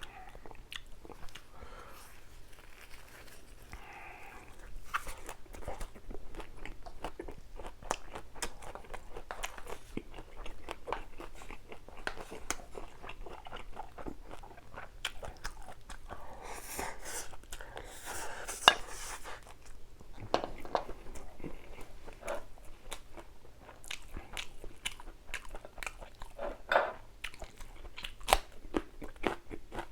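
A person chewing and biting, with many crisp crunches of raw vegetables, the densest and loudest crunching about 17 to 19 seconds in.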